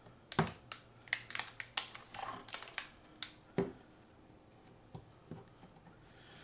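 Handling noise from a Caavo Control Center media hub: its protective plastic film crinkles and its plastic casing clicks and taps against hands and the table as it is lifted and turned over. A quick run of sharp ticks and crinkles fills the first few seconds, then only a couple of soft taps.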